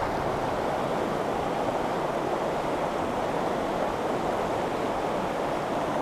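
Steady rushing of a shallow, fast river running over stones and small rapids.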